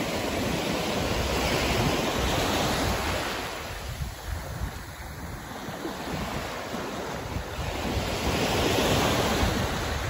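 Small Gulf of Mexico waves breaking and washing up a sandy beach, the surf swelling twice, with wind rumbling on the microphone.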